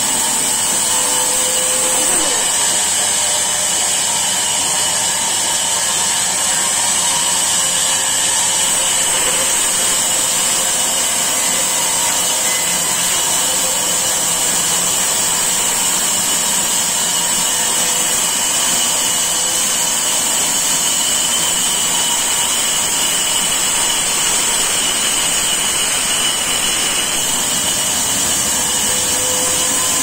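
Large vertical sawmill band saw running steadily and cutting lengthwise through a log, with a steady high whine.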